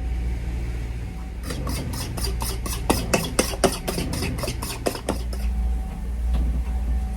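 White pepper being shaken out of a shaker in quick even shakes, about four a second for some four seconds, starting about a second and a half in. A steady low hum runs underneath.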